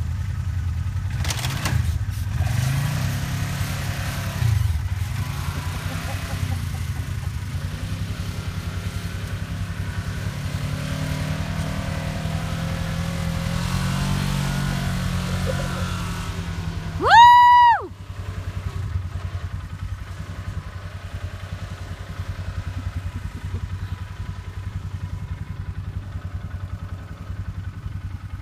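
Off-road vehicle engine running with a steady low drone, revving up and down in the first few seconds. A little over halfway through, a loud, brief, high-pitched whoop rises and falls in pitch.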